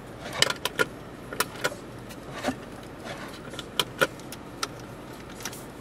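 Plastic clicks and taps from the hinged storage lid on top of a car's dashboard being opened, handled and pressed shut: about ten sharp clicks at uneven intervals.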